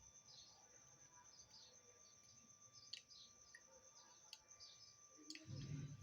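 Faint, steady insect trilling with short chirping calls over it. A few sharp clicks come through, and a low thump near the end.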